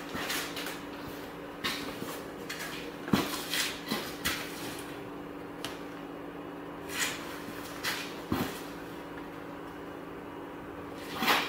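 Handling of a large vinyl decal sheet with paper backing: scattered rustles, crinkles and light taps as the backing is peeled and the decal is pressed against a vehicle door, the loudest rustle near the end, over a faint steady hum.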